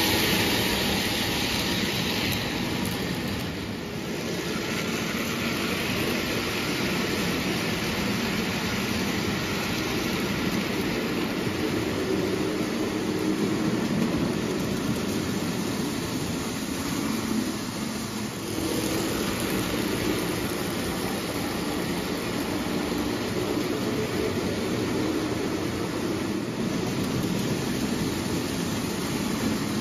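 Lionel O gauge toy trains running on three-rail tubular steel track: a steady rumble and clatter of wheels and motors, loudest at the start as a steam locomotive and tender pass close by.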